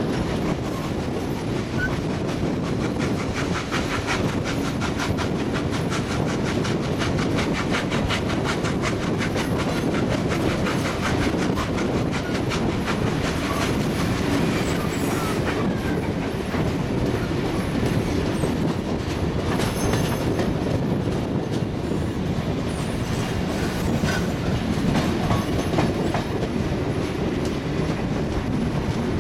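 Steam-hauled heritage passenger train running over rail joints and pointwork: a fast clickety-clack of carriage wheels, heard from an open carriage window, with a faint squeal of wheels on the curve.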